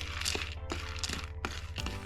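Background music with held tones, with a few short clicks and soft rustling bursts over it.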